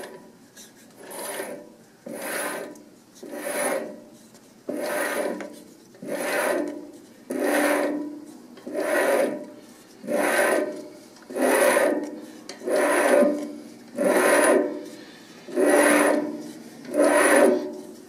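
Single-point threading tool cutting an internal thread in a brass cap on a lathe turned by hand, a rasping scrape with each stroke. The strokes come about one every 1.3 seconds, fourteen or so, each swelling and then fading.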